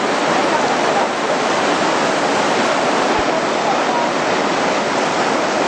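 Whitewater rapids rushing: a loud, steady, unbroken wash of river water.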